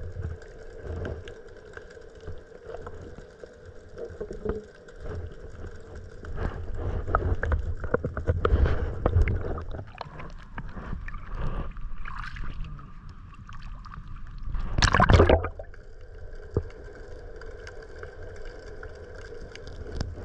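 Shallow sea water sloshing and gurgling around someone wading with a flashlight, with small knocks and one loud burst of splashing noise about fifteen seconds in.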